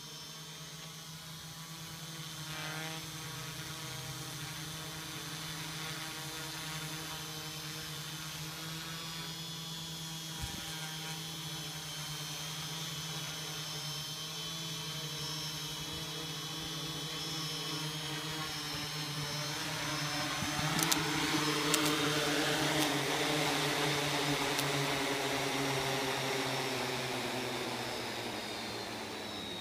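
Quadcopter's electric motors and propellers whirring steadily as it comes in to land under autopilot. The whir grows louder about two-thirds of the way through, with a few sharp clicks. Near the end its pitch slides down as the motors slow with the craft on the grass.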